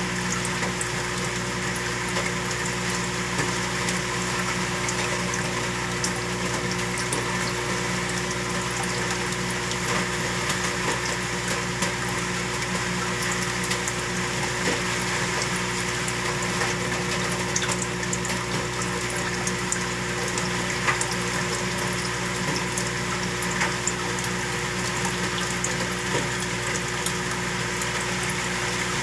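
Saltwater aquarium circulation pump running with a steady hum under a constant rush of moving water, with faint scattered ticks.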